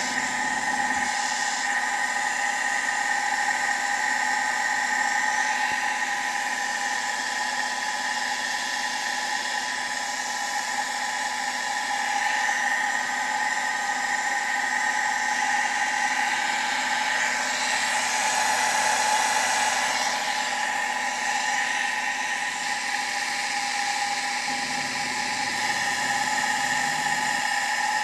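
Electric water pump running steadily, its motor giving a constant high whine with a hiss underneath.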